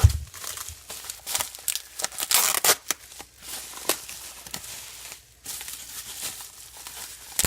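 Packing tape and wrapping being pulled and torn off a boxed subwoofer: a run of irregular crinkling rustles and tearing rips. A low thump right at the start.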